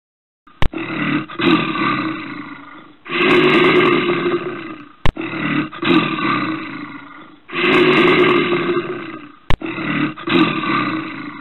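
A large animal roaring, from a sound-effect recording that loops: a sharp click, then two long roars, the pattern repeating about every four and a half seconds.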